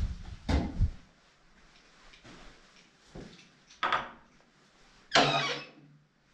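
Irregular footsteps and scuffs of a person walking through a stairwell, with a louder, drawn-out scuff about five seconds in.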